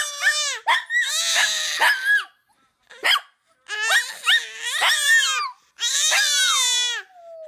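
Baby squealing and laughing in a string of high-pitched bursts.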